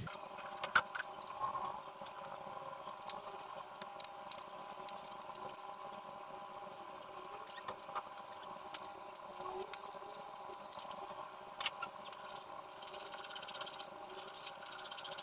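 Faint scattered clicks and taps as a knife slices onions on a plastic cutting board and the onion rings are handled and pulled apart. A steady background hum runs underneath.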